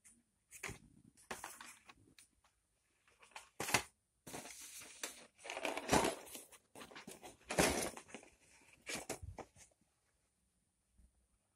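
Handling noise from a cardboard model-kit box being picked up and moved about on a bedspread: irregular rustling bursts, the loudest about four, six and seven and a half seconds in, dying away near the end.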